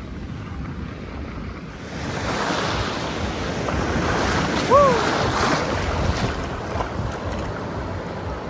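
Wind buffeting the microphone, then, about two seconds in, ocean surf breaking and washing in on a beach. About halfway through comes a short high cry that rises and falls.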